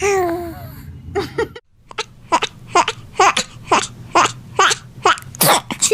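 A baby's voice: a short call falling in pitch at the start, then, after a brief break, a run of short, evenly spaced vocal bursts, about two a second.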